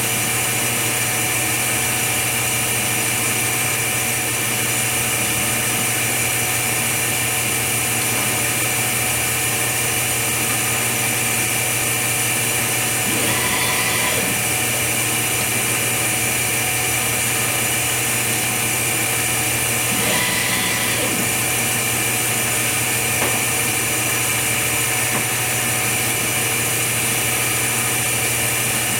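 Steady mechanical hum with several constant tones. A brief mechanical movement sound comes a little under halfway through and another about two-thirds of the way in.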